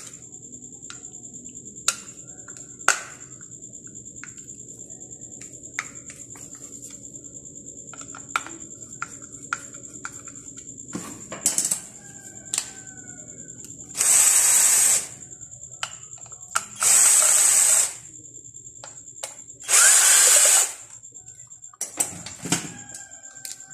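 A small power screwdriver runs in three bursts of about a second each, a couple of seconds apart, backing out the three screws that hold the head of a water purifier's pump. Light clicks and knocks of handling come between the bursts.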